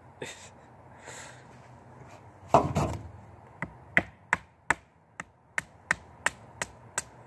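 Cheap kitchen knife chopping into a piece of wood: one heavy knock, then a run of quick, sharp strikes at about three a second.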